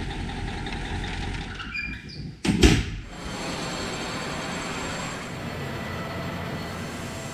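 A steady low machinery hum, broken about two and a half seconds in by one heavy thump.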